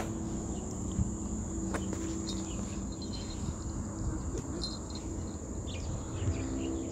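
Steady high-pitched drone of insects, with a few short bird chirps scattered through.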